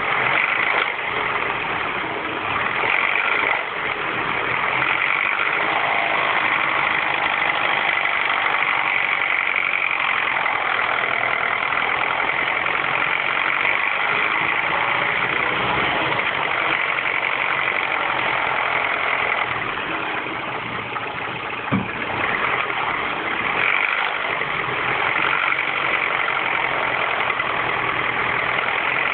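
R56 Mini Cooper S 1.6-litre turbocharged four-cylinder engine idling cold, with a steady high-pitched noise over the idle; this is the cold-engine noise still present after the timing chain tensioner was changed. One sharp click sounds about two-thirds of the way through.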